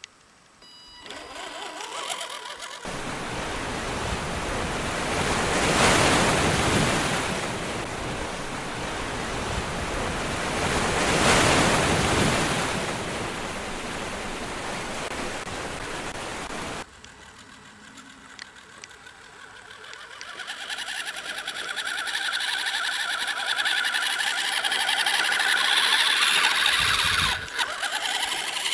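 A loud, even rushing noise swells twice and then stops abruptly. After a lull, a radio-controlled Axial SCX10 crawler truck's electric motor and drivetrain whine, growing louder as it drives off.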